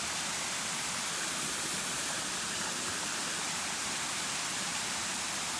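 Steady rush of water from a small waterfall.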